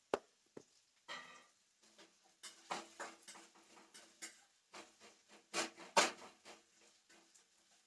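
Irregular clinks, taps and rustles of kitchen utensils and steel containers being handled, loudest as a couple of knocks about six seconds in.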